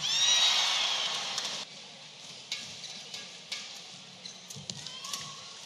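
Arena crowd cheering loudly, cut off abruptly after about a second and a half. Then a murmuring crowd with sharp racket strikes on a shuttlecock about once a second during a badminton rally.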